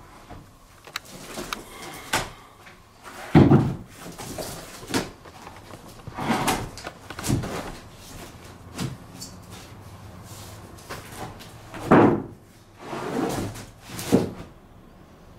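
Timber floorboards being handled and set down on the floor joists: a string of wooden knocks and clunks, the loudest about three seconds in and again near twelve seconds.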